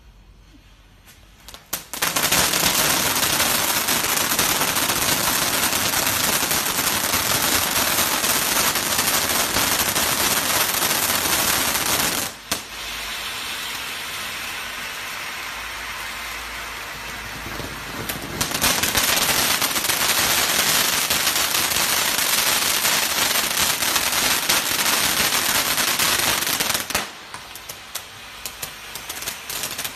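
Peacock fireworks fountain spraying twin jets of sparks: it catches about two seconds in with a loud rushing hiss full of crackle, eases for a few seconds in the middle, surges again, and falls to a weaker crackle near the end as the spray dies down.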